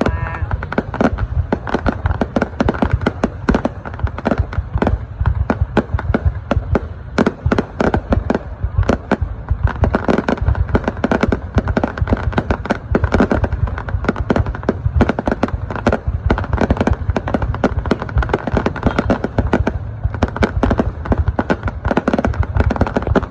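Aerial fireworks going off in a dense, continuous barrage: rapid overlapping bangs and crackles, many per second, with no pause.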